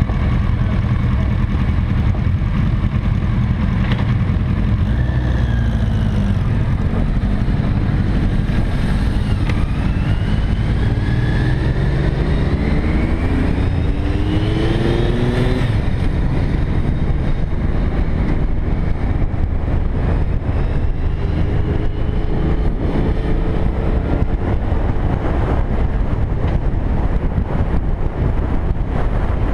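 Cruiser motorcycle engines idling at a stop, then pulling away, the pitch rising several times as the bike accelerates and shifts up, before settling into steady running at road speed.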